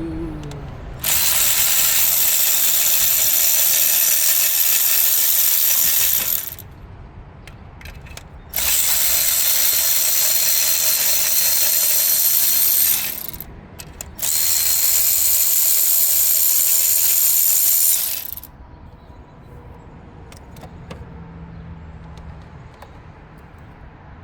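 Power ratchet running in three steady bursts of about four to five seconds each, with short pauses between, as it spins old spark plugs out of the cylinder head.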